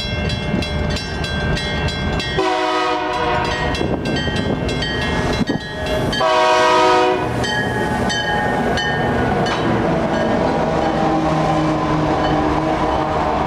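Diesel locomotive horn sounding repeatedly, with two loudest blasts about two and a half and six seconds in, over the steady rumble of a passing train.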